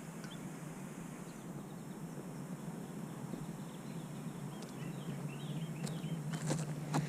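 Quiet outdoor background: a low steady hum, with faint short bird chirps coming in from about halfway through.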